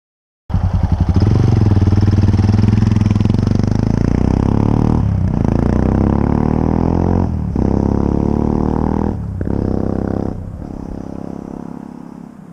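Yamaha XT660X's single-cylinder four-stroke engine running loud through Leovince X3 exhausts, cutting in suddenly. The sound dips briefly four times, then fades away over the last couple of seconds.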